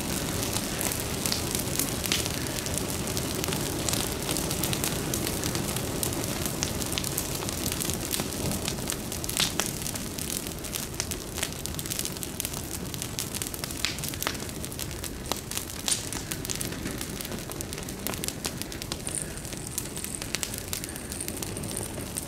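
A Christmas tree burning on an open burn pile: a steady rush of flames with frequent sharp, irregular crackles and pops from the burning branches, easing slightly toward the end as the fire dies down.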